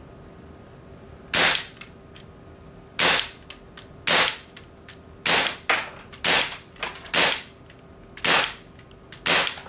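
Crosman T4 non-blowback CO2 air pistol firing eight .177 pellet shots, about one a second, each a sudden sharp report, with fainter ticks between some of the shots.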